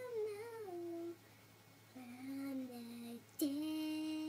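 A girl singing wordless, drawn-out notes as a mock séance chant: a gliding phrase that falls away, then after a short pause two lower held notes, and from about three and a half seconds in a long steady note.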